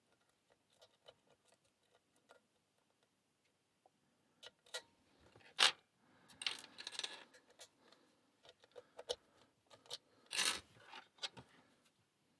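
Lock picks clicking and scraping against the pin tumblers of a small Abus 45/15 padlock during a fast picking attempt. A few faint ticks at first, then from about four seconds in a busy run of sharp clicks and rattling scrapes, loudest near the middle and again near the end.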